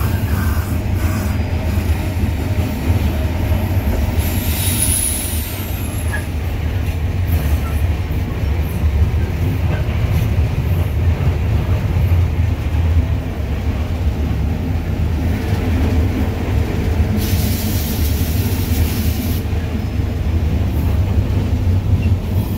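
Heard from inside the cab, the EMD GL18B locomotive's two-stroke eight-cylinder EMD 8-645 diesel engine runs with a steady low drone as the train moves along the track. A brief high squeal comes about four to five seconds in, and a burst of hiss about two seconds long comes near the end.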